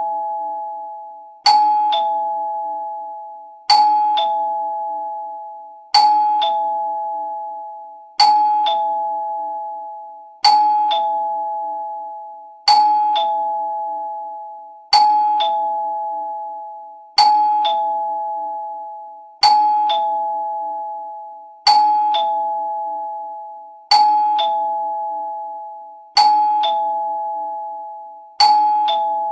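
Two-note ding-dong doorbell chime: a higher note struck, then a lower one, each ringing and fading away. It repeats about every two and a quarter seconds, some thirteen times.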